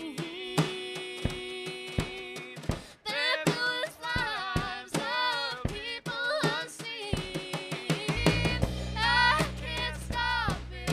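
Indie folk-rock band playing live: a woman singing over guitar, bass and a drum kit.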